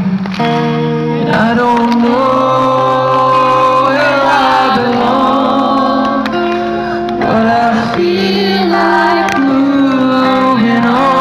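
A synth-pop band playing live, a singer's voice over held chords that change every second or two.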